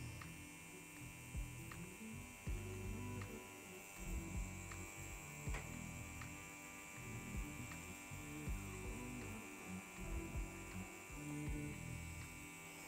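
BRONC Magic wireless rotary tattoo pen running steadily with a faint motor hum as a curved magnum needle works into silicone practice skin, with occasional faint clicks.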